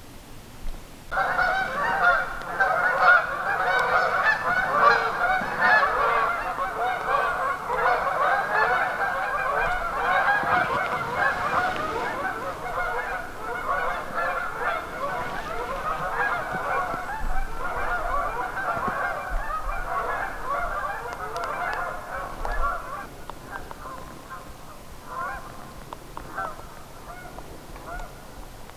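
A large flock of geese calling all at once, many overlapping calls in a dense chorus. It starts suddenly about a second in and thins to scattered calls in the last few seconds.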